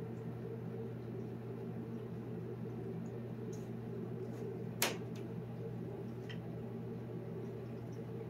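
A steady low hum with several pitched tones throughout. About five seconds in comes a single sharp knock as a long-haired cat jumps from a tabletop down onto an upholstered chair.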